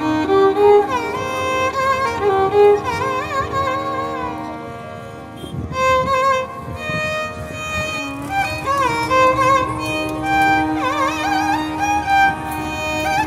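Instrumental background music: a melody of sliding, wavering notes over a steady held drone note.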